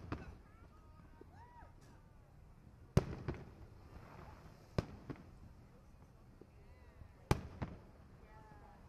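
Aerial fireworks shells bursting: three sharp bangs a couple of seconds apart, each followed closely by a smaller second report, over faint crowd voices.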